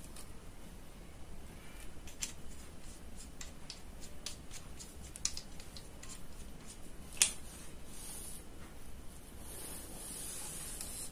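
Small metal clicks and taps from hands working the parts of a PCP air rifle, with one sharper click about seven seconds in and a faint hiss near the end.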